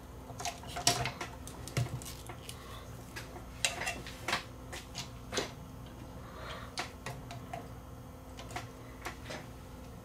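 Irregular clicks, taps and light rattles of hands working inside the opened chassis of a CRT television, among its wiring and circuit board.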